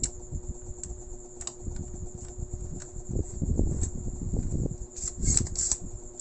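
Electric fan running, with a steady high whine and a low hum, and a few light clicks and taps of soldering tools being handled, busiest about five seconds in.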